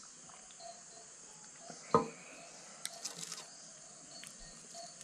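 Steady high-pitched insect chorus in the background, with one sharp knock about two seconds in, fitting a drinking glass set down on a glass tabletop, and a few faint clicks a second later.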